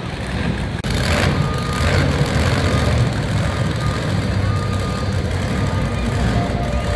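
A heavy vehicle's engine running steadily, with a reversing beeper sounding at intervals over it. The sound breaks off briefly just under a second in.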